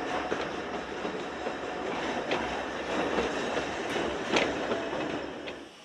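Narrow-gauge railway passenger coaches rolling past at close range: a steady rumble of wheels on the track with a few sharp clicks over the rail joints, the loudest about four seconds in. The sound stops abruptly near the end.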